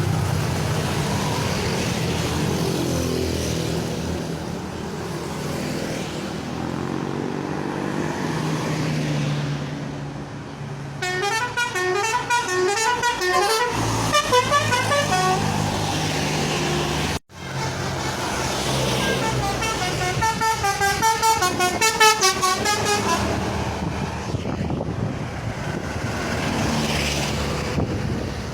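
Telolet basuri multi-tone musical horn playing quick, stepping melodies twice, about eleven seconds in and again about twenty seconds in. A vehicle engine runs steadily underneath.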